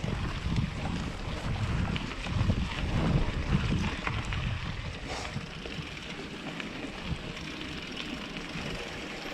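Wind buffeting the microphone along with the rolling noise of a hardtail mountain bike on a dirt trail. The rumble eases after about five seconds, leaving a lower steady noise with a few light clicks and rattles.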